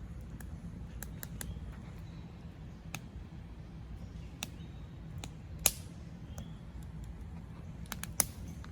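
Campfire wood burning, with scattered sharp crackles and pops, the loudest about six seconds in and another just after eight seconds, over a steady low rumble.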